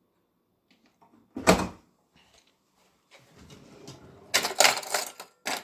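A single sharp knock about a second and a half in, then about two seconds of rattling and clattering from a kitchen drawer as a knife and fork are taken out.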